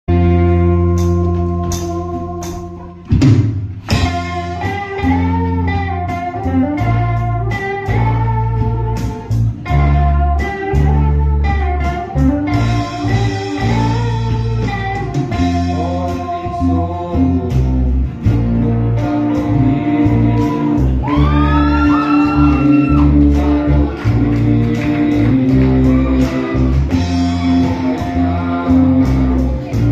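Live rock band playing through a PA: electric and acoustic guitars, bass and drum kit, with a singer on a microphone. A held chord fades for the first three seconds, then the drums hit and the full band comes in.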